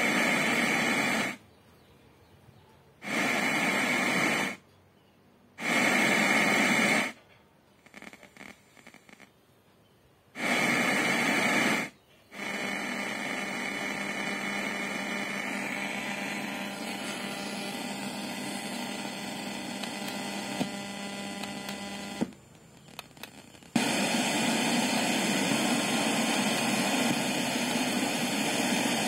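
Hiss of FM radio static from the soundbar's speaker with a faint hum under it. It comes first in four short bursts of about a second each with silent gaps between, then runs steadily, cuts out briefly near the end and comes back louder.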